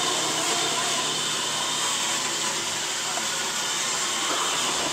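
iRobot Roomba robot vacuum running, a steady whirring hum of its motor and brushes at an even level.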